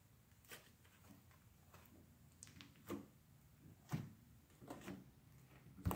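Butter slime being squeezed and poked by hand: faint, irregular soft clicks and squelches, the sharpest about three, four and six seconds in.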